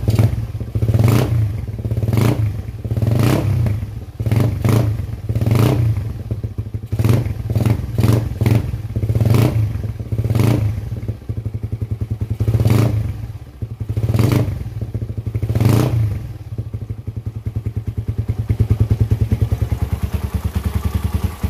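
Underbone motorcycle engine with a reground racing camshaft, heard at the exhaust, its throttle blipped about once a second in short surges before settling to an even idle after about 16 seconds. The revs have a slightly choked note, which the owner takes as normal for a carburettor tune that is still a little lean.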